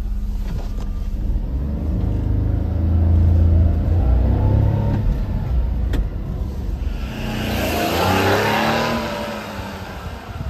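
Small three-cylinder engine of a 1998 Daihatsu Hijet kei truck running and revving, its pitch rising and falling in sweeps. About seven seconds in, a louder swell of engine and road noise rises and then fades away near the end.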